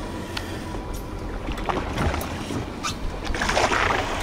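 Boat at sea: a steady low rumble with water washing and splashing, rising to a louder rush of splashing about three and a half seconds in.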